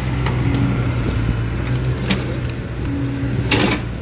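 Caterpillar E70B excavator's diesel engine running steadily under load while it digs, with a short harsh scraping burst about three and a half seconds in as the bucket works the dirt.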